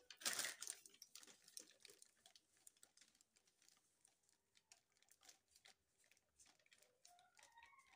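Paper bag rustling as it is handled and tipped to pour powdered pancake mix, loudest in the first half-second, then faint scattered ticks.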